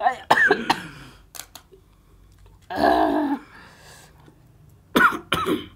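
A person coughing and clearing the throat, with two sharp coughs near the end. A few faint, crisp cracks of a papad being snapped by hand come about a second and a half in.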